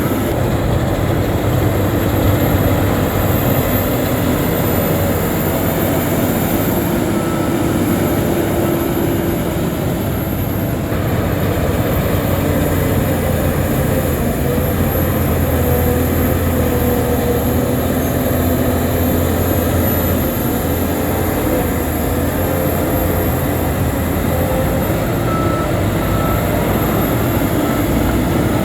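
Shantui crawler bulldozer running steadily under load: a diesel engine drone mixed with the rumble and clatter of its steel tracks.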